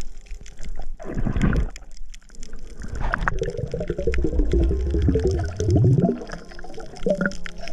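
Water gurgling and sloshing: a short burst about a second in, then a longer gurgle of about three seconds.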